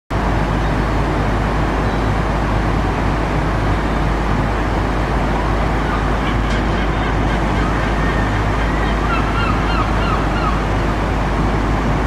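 Steady rush of water pouring over a weir, with a few faint high chirps about three-quarters of the way through.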